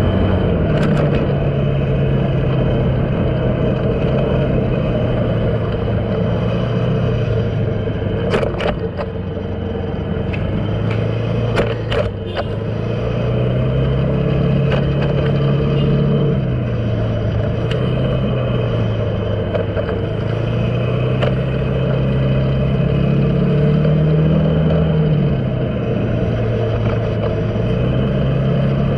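A jeepney's engine runs as the vehicle drives through city streets, over steady road noise. The engine note rises and falls several times with the driving. A few sharp clicks or rattles come about a third of the way through.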